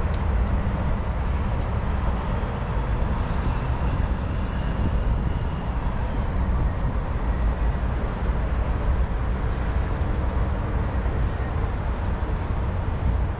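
Steady low outdoor rumble, with faint light ticks about every half second.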